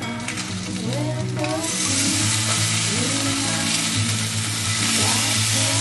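Bacon sizzling in a hot skillet, the frying hiss growing louder and fuller about a second and a half in. Soft background music plays underneath.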